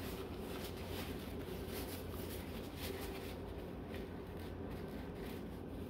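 Quiet room tone: a low steady hum with faint scattered small handling noises.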